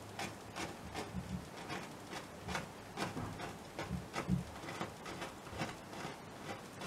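Paintbrush dabbing and stroking acrylic paint onto a canvas: a run of short, irregular taps, about two or three a second.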